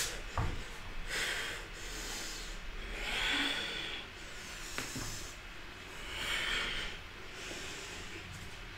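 A woman breathing audibly in slow, hissing breaths, one about every two to three seconds, as she moves through a yoga vinyasa, with a single soft tap about halfway through.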